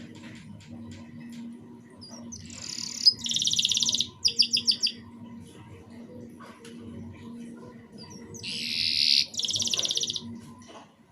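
Domestic canary singing in two short bursts of fast, high trills: the first, about two and a half seconds in, ends in a quick run of separate pulsed notes; the second comes near the end. A faint steady hum lies underneath.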